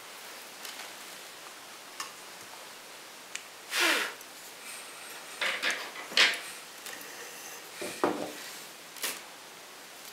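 Hands handling thin speaker wire and a small hand wire cutter: a scattering of light clicks and short scraping rubs, about half a dozen, as the wire is cut to length.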